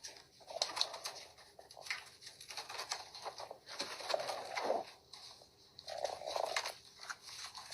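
Five-week-old puppies playing: soft grunts and small whining noises, mixed with light clicks and scuffles.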